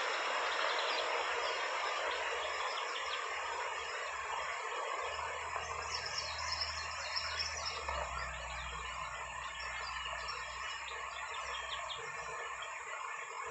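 Steady wind-like outdoor hiss with rustling, and small songbirds chirping faintly in short high notes from about six seconds in.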